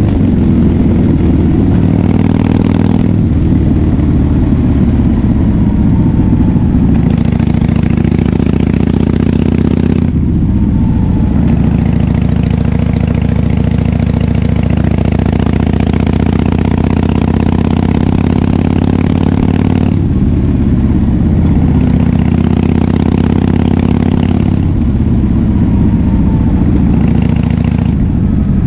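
Harley-Davidson Fat Bob FXDF's air-cooled V-twin engine running loud through a KessTech aftermarket exhaust while riding. The engine note rises and drops several times with throttle and gear changes.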